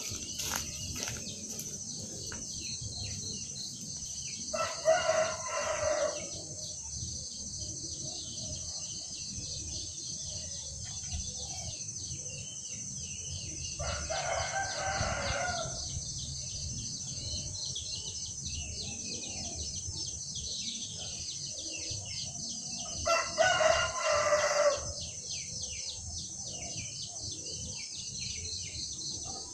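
A rooster crowing three times, each crow about two seconds long and roughly nine seconds apart, over a steady high-pitched buzz.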